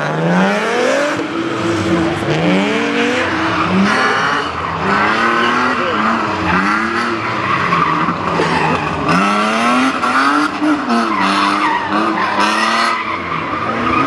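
BMW E36 competition car engines driven hard, the revs climbing and dropping again and again as the throttle and gears are worked, with tyres squealing and skidding on the wet tarmac.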